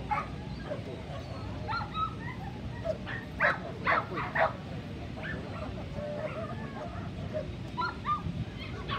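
Dogs barking and yipping in short, sharp clusters, the loudest three barks about three and a half to four and a half seconds in and another burst near the end, over steady low background noise.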